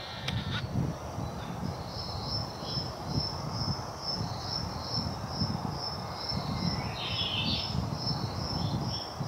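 A high, even chirp repeating about twice a second, with a short, different call about seven seconds in, over an irregular low rumbling.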